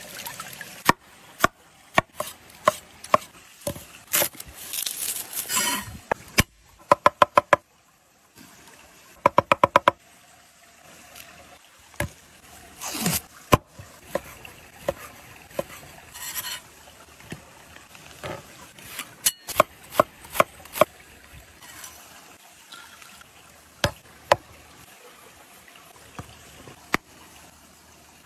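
A cleaver chopping on a wooden cutting board: scattered single cuts and knocks, with two quick runs of rapid chops, the loudest sounds, about a quarter of the way in and again about a third of the way in.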